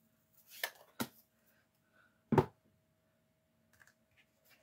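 A few light clicks and knocks of craft stamping supplies being handled on a tabletop: a sharp click about a second in and a louder knock a little past two seconds, with a few faint ticks near the end.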